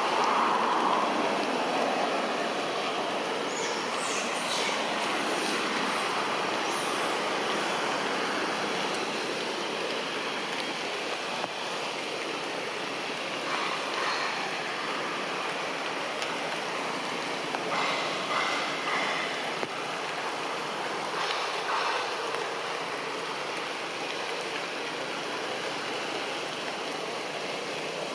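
Steady rushing outdoor background noise with a few short high-pitched chirps scattered through it.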